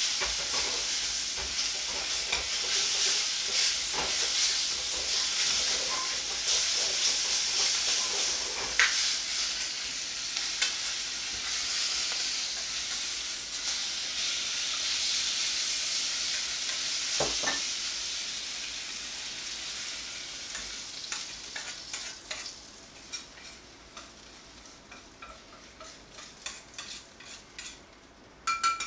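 Sliced pork sizzling in a hot carbon-steel wok, with a metal ladle scraping and stirring through it. The sizzle fades away over the second half to scattered small crackles, and a metal clank sounds just before the end.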